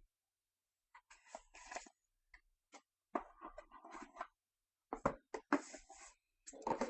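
Trading cards and their packaging being handled, giving short bursts of rustling and scraping with sharp clicks, broken by gaps of silence.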